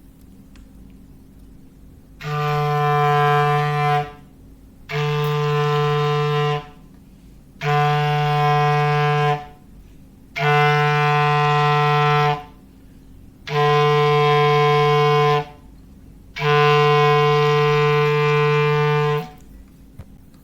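Foghorn sound effect made as a low clarinet note: six steady blasts at one pitch, each about two seconds long, about a second apart, the last one a little longer.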